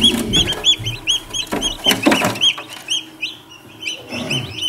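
Newly hatched Cobb 500 broiler chicks peeping: a rapid run of short, high chirps from several chicks at once, thinning briefly a little past the middle. A few soft knocks come through among them.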